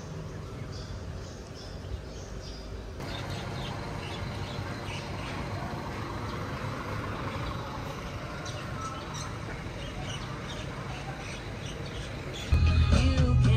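Steady low outdoor rumble with scattered high chirps; the background changes abruptly about three seconds in. Loud music comes in near the end.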